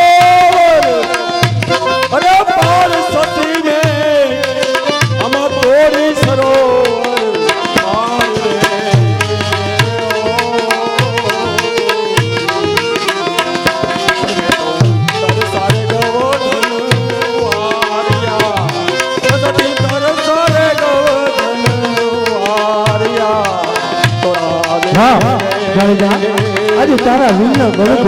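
Folk-theatre music: a steady hand-drum beat under a wavering, gliding melodic line.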